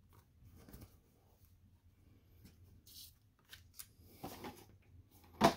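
Faint rustling and light taps of a stiff paper game card and packing slips being handled and laid down, with one sharper tap near the end.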